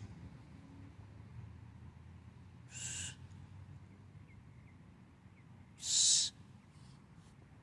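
Two short, forceful exhalations from a man straining through weighted pushups, one about three seconds in and a louder one about six seconds in.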